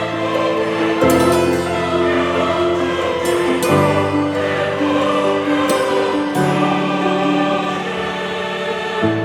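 Background music: slow sustained chords with a choir-like vocal texture, the harmony changing every second or two.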